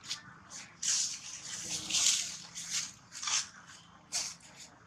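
Wet smacking mouth sounds from macaques, short and irregular, about two a second.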